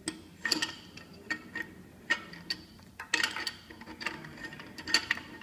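Brass coupling being screwed by hand onto the threaded end of a water meter: irregular metallic clicks and clinks from the fittings, thickest about three seconds in.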